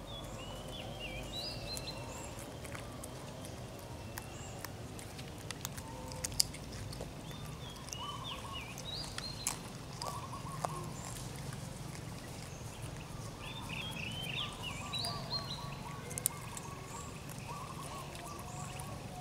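Outdoor ambience of short, high chirping animal calls that come in clusters (about a second in, around eight to nine seconds, and around fourteen to fifteen seconds), with a few sharp clicks, the loudest about six seconds in, over a faint steady low hum.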